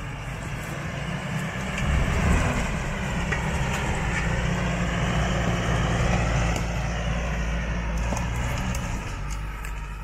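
2009 Mitsubishi L200 Triton pickup's engine working hard under load as it climbs a steep, rough forest slope; the revs rise about two seconds in and are held there. A few sharp cracks come near the end.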